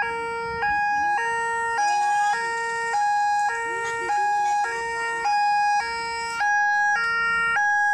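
Railway level-crossing warning alarm sounding, a steady two-tone signal alternating between a lower and a higher tone a little more than every half second, warning that a train is approaching and the barriers are down.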